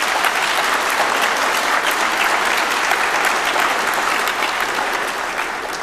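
Audience applauding: dense, steady clapping from many hands that eases off slightly near the end.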